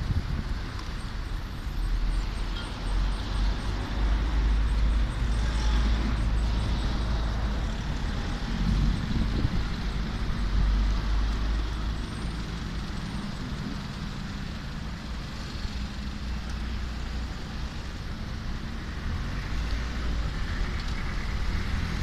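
Road traffic on a town street: cars passing, with a steady low rumble underneath.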